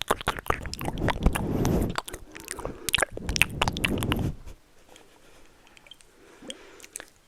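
Close-microphone ASMR mouth sounds: rapid wet clicks and smacks with breathy puffs, stopping about four and a half seconds in.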